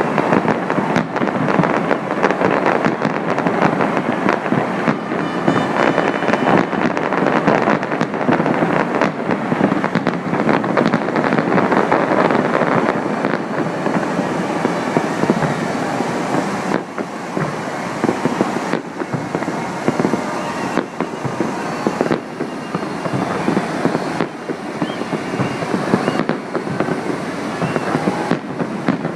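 Fireworks going off in a dense, continuous barrage of overlapping bangs and crackles, easing off slightly about halfway through.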